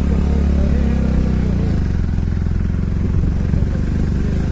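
Motorcycle engine running steadily while riding along the road, its note shifting a little under two seconds in.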